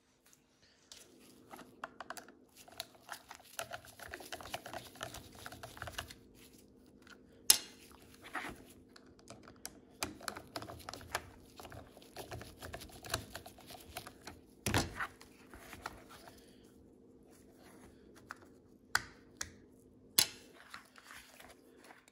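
Small plastic and metal parts of an electric pencil sharpener's motor and gear assembly being handled and worked on by hand: irregular light clicks, taps and rattles, with a few sharper knocks about a third of the way in, in the middle and near the end.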